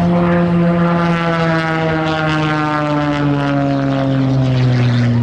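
Propeller airplane flying past, its engine and propeller note sliding steadily down in pitch as it goes by.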